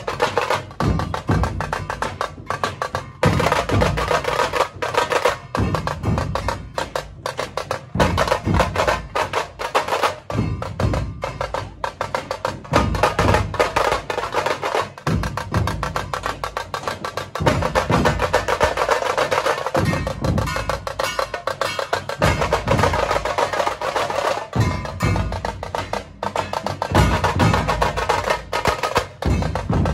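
Dhol-tasha troupe playing: deep, booming dhol beats under rapid, sharp tasha strikes and rolls, loud and continuous.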